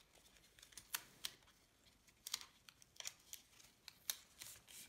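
Faint, scattered clicks and taps of stiff cardstock layers being handled and Scotch tape pressed down along their edges.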